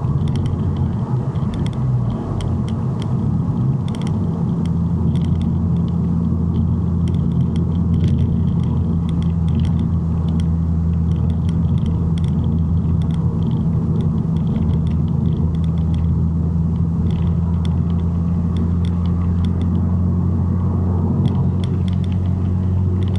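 Mazdaspeed3's turbocharged 2.3-litre four-cylinder engine running steadily while driving, a constant low drone with scattered light clicks. The car is down on power, barely pulling under throttle.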